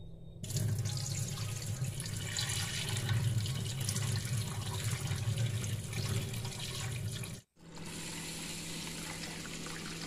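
Cloudy rinse water from soaked rice and lentils poured from a steel bowl into a stainless-steel sink, splashing onto the drain. After a short break about seven seconds in, a steadier stream of tap water runs into the bowl to refill it for the next rinse.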